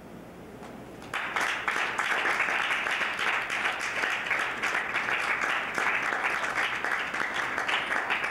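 A small audience applauding, with the clapping starting suddenly about a second in after a brief lull and then going on steadily.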